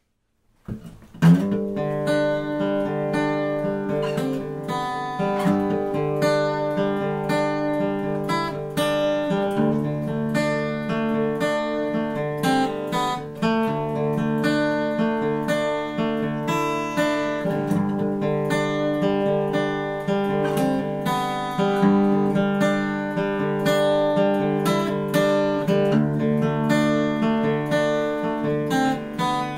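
Acoustic guitar strummed in steady chords, starting sharply about a second in.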